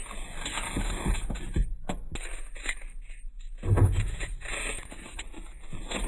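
Small cardboard drink cartons being set down and slid into a row on a fridge shelf: light taps, scrapes and rustles of cardboard against the shelf, with a heavier knock a little before four seconds in.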